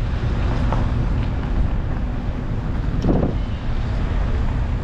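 Wind buffeting the microphone: a steady low rumble and hiss, with a brief louder bump about three seconds in.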